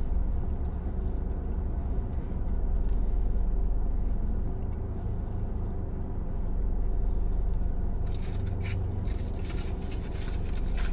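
Steady low hum of the car idling, heard inside the cabin. From about eight seconds in, crinkling and rustling of the aluminium foil sandwich wrapper.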